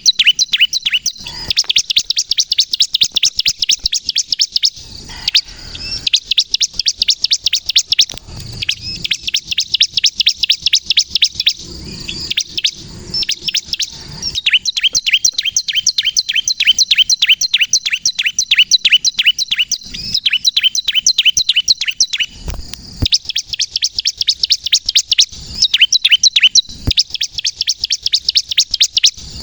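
Bar-winged prinia (ciblek) singing: long runs of rapid, sharp, high chirps, many a second, broken by short pauses. This is the loud, excited song used to lure wild prinias and to stir captive ones into singing.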